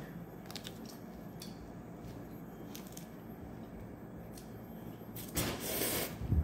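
Quiet room tone with a few faint clicks, then about five seconds in a rustle lasting about a second as a slice of strawberry-topped toast is picked up off its plate, ending in a low thump.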